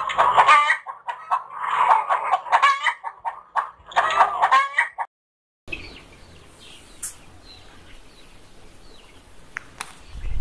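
Chickens clucking and cackling loudly for about five seconds, then a sudden cut to silence. After that come faint, scattered high peeps from young brown layer chicks sick with Newcastle disease.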